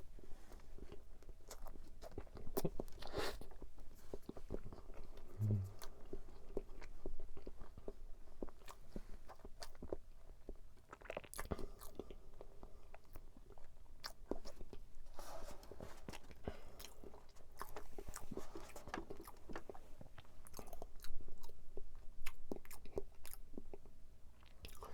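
Close-up eating of an egg tart: bites into flaky pastry crust and chewing, with many small irregular crunches and mouth sounds.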